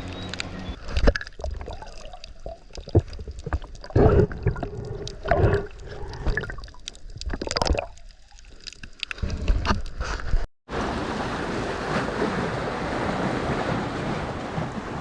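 Water splashing and sloshing with irregular knocks close to the microphone; after a sudden cut about ten seconds in, a steady wash of waves and wind.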